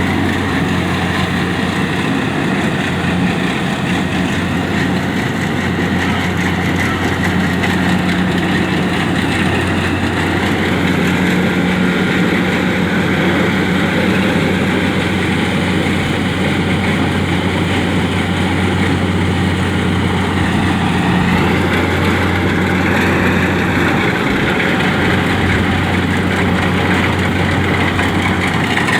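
Kubota DC-70 rice combine harvester's diesel engine running steadily under working load, with the even whirr of the harvesting machinery over it.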